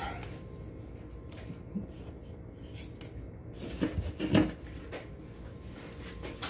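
Hands handling booster packs and the cardboard display box: scattered light clicks, then rustling with two louder knocks about four seconds in as a pack is pulled from the box.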